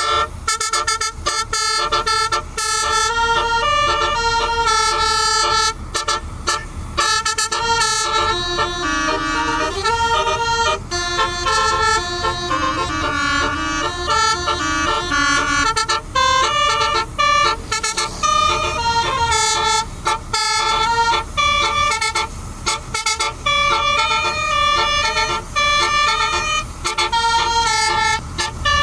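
Telolet basuri multi-tone air horns on a medium-size bus playing a loud melody. Held chords step from note to note with short breaks, over a low rumble underneath.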